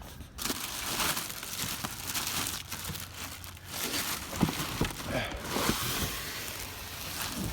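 Packing material around a new e-scooter being handled and pulled about, crinkling and rustling in two long stretches with a few light knocks.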